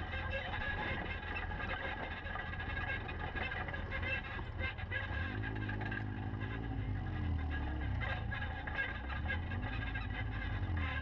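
Polaris RZR side-by-side engines running along a dirt trail, with a steady drone and tyre noise. About halfway through, and again near the end, the engine pitch holds and then rises and falls as the throttle changes.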